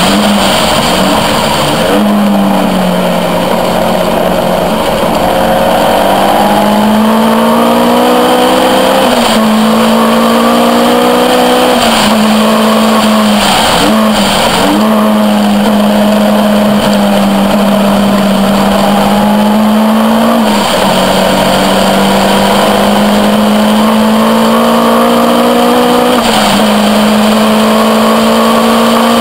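Caterham R400's four-cylinder engine running hard on track, heard from the cockpit. Its pitch climbs slowly through each gear and drops or jumps at gear changes several times.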